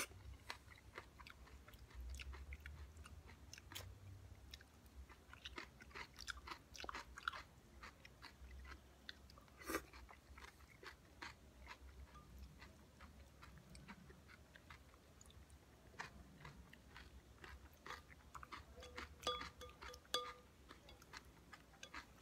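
Quiet, close chewing of a crunchy shopska salad of raw cucumber, tomato, onion and cheese: a steady run of soft, wet crunches and bites, with a sharper click now and then.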